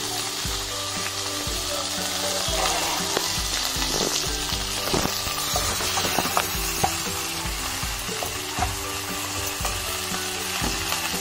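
Chopped onion, tomato, ginger, garlic and green chillies sizzling in hot oil in a non-stick kadai, stirred with a wooden spatula that scrapes and knocks against the pan now and then, most often in the middle of the stretch.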